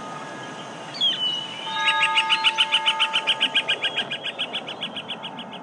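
Birdsong from the soundtrack: a single chirp about a second in, then a fast trill of quickly repeated notes starting around two seconds in and fading out. It plays over a steady held tone that ends about halfway through.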